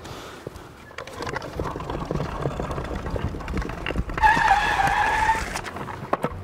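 Wooden wheels of a homemade wooden scooter rumbling and clattering over paving stones. About four seconds in, a high squeal lasting about a second comes as the scooter pulls up to a stop.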